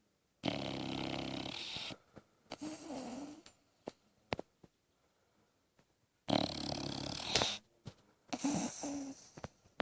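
Dog snoring: two loud, rasping snores about six seconds apart, each over a second long and each followed by a softer breath.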